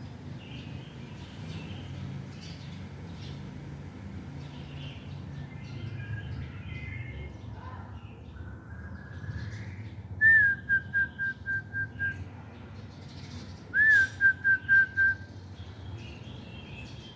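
Two short whistled phrases, about ten and fourteen seconds in. Each is a swooping note followed by a quick run of five or six short, even notes at the same pitch. Faint small-bird chirps sound in the background.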